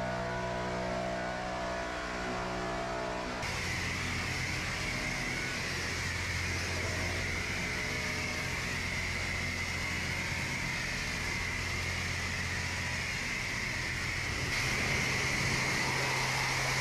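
Background music for the first few seconds, then a car-wash high-pressure wand spraying water onto a pickup truck. The spray makes a steady hiss over a low steady hum and gets slightly louder near the end as it works across the front grille.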